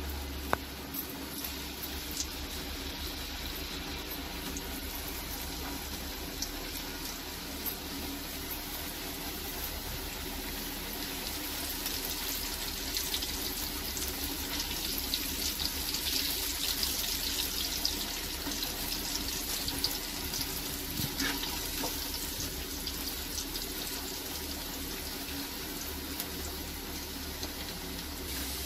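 Cornflour-coated potato sticks deep-frying in hot oil in an aluminium kadhai: a steady sizzle and bubbling that swells a little midway, with a few short clicks.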